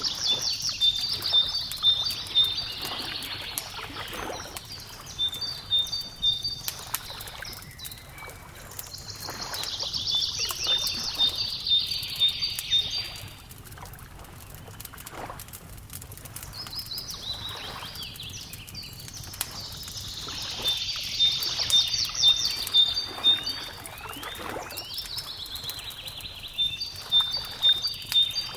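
A songbird sings a short, rapid phrase every nine seconds or so, four times, over the steady snapping and popping of a crackling wood fire.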